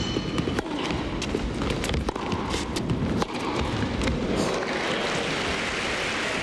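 Sharp racket-on-ball hits of a tennis rally over a murmuring indoor crowd, then the crowd breaks into steady applause about four and a half seconds in as the point ends.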